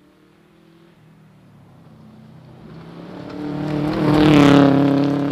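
Subaru Impreza rally car's flat-four engine growing louder as the car approaches on gravel. It passes close about four and a half seconds in with a brief hiss of sprayed gravel, then starts to fade.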